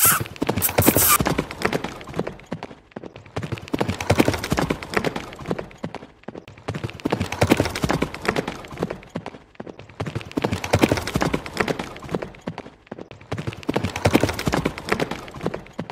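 Electric walking horse toy making a rapid clip-clop hoof sound, in bursts of about three seconds with brief pauses between.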